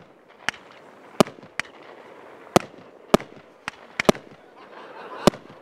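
Fireworks display going off: aerial shells banging sharply at irregular intervals, about nine reports in a few seconds, some of them in quick pairs.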